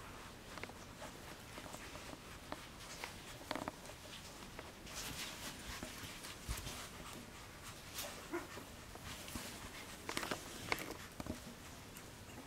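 Two-week-old boxer puppy giving a few brief squeaks and grunts while it is handled. Soft rustling and scattered clicks come from hands and fur moving on the fleece blanket.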